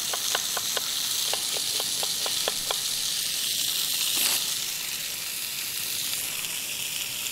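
Floured beef shoulder pieces sizzling steadily as they brown in hot oil in a pot. Over it, a kitchen knife dices an onion on a wooden board in quick chops, about four a second, which stop about three seconds in; a brief scrape follows as the diced onion is swept together on the board.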